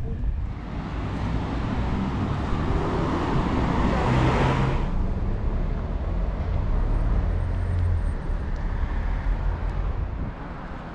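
Road traffic: the tyre and engine noise of a passing car swells over the first few seconds and cuts off abruptly about five seconds in, leaving a low traffic rumble.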